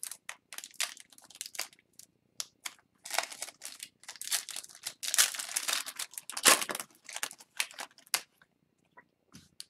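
Foil wrapper of an O-Pee-Chee Platinum hockey card pack being torn open and crinkled: a run of crackling tears and rustles, densest in the middle with one sharp rip, then thinning out near the end as the cards come out.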